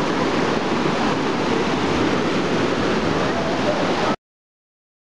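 Steady rush of a jungle river running over rapids, loud and even, cutting off suddenly to silence about four seconds in.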